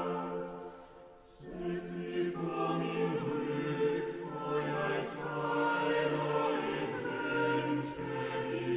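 Mixed chamber choir singing a slow, sustained contemporary choral piece over bowed cello. The sound thins out briefly about a second in at a phrase break, then the voices come back in, with soft sibilant consonants now and then.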